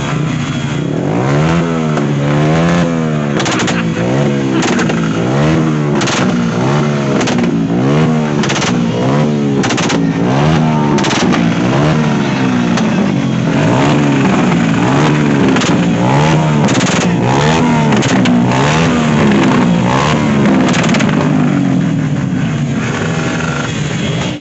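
Small commuter motorcycle revved hard over and over in the crowd, its engine note climbing and dropping about once a second, with sharp exhaust pops cracking out between the revs.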